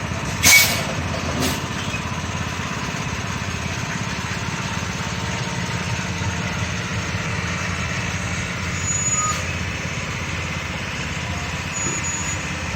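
A vehicle engine running steadily at idle, with a sharp click about half a second in and a fainter one a second later.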